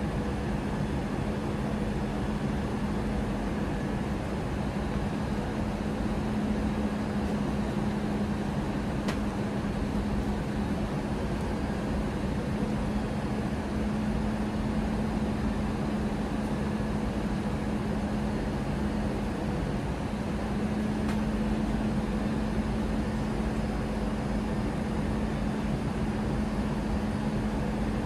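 Steady in-flight cabin noise of an Airbus A320 with CFM56-5B engines: an even rush of airflow and engine noise with a constant low hum.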